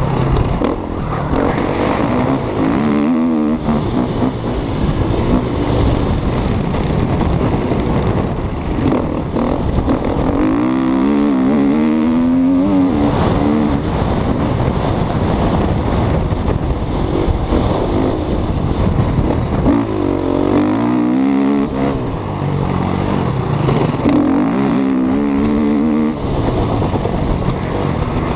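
KTM 250 EXC-F single-cylinder four-stroke enduro bike engine heard on board while racing on a dirt track, revving hard with its pitch climbing and dropping again and again as the throttle is worked and gears change.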